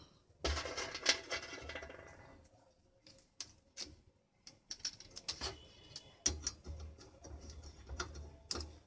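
Handling noise: scattered light clicks, taps and rattles from wire connectors and the metal UPS chassis being handled, with a brief ringing clatter about half a second in and dull thumps from the phone being moved.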